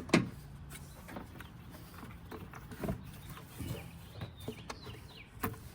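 Hard plastic knocks and clicks as the air filter box lid is fitted back on: a sharp knock just after the start, then scattered lighter knocks, with another sharp one near the end.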